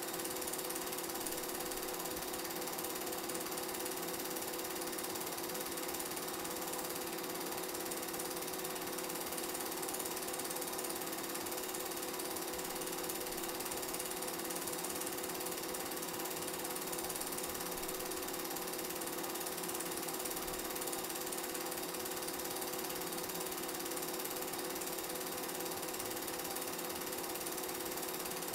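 Film projector running during the transfer of old silent game film: a steady mechanical clatter with a constant hum underneath.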